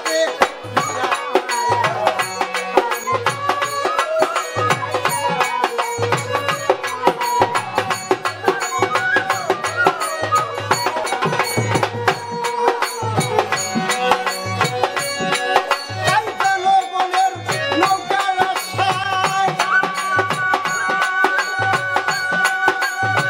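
Bengali baul folk song music: a melody with a plucked dotara-type lute over a steady hand-drum beat, ending on long held notes.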